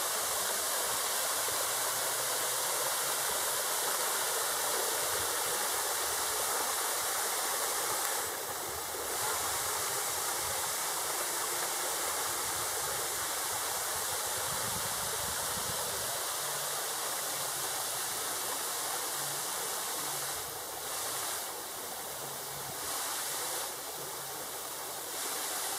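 A thin waterfall at low flow, its water trickling and splashing down stepped rock ledges in a steady rush. The level dips briefly a few times.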